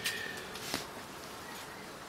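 Quiet background hiss with two faint clicks, one at the start and one about three quarters of a second in.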